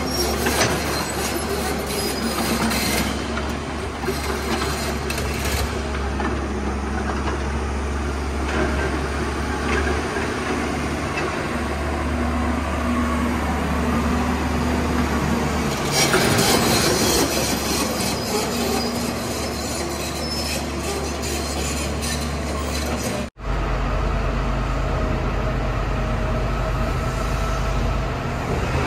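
Heavy excavator machinery working: a steady engine and hydraulic din with metallic squealing and clanking. It cuts out for an instant about two-thirds of the way through, then runs on.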